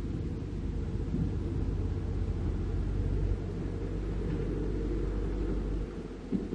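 Caterpillar 305.5E2 mini excavator's diesel engine running, a steady low rumble as the machine works over rubble. Near the end the rumble drops and a few louder knocks come.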